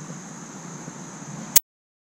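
Steady hiss of shallow river water flowing, which cuts off suddenly with a click about a second and a half in.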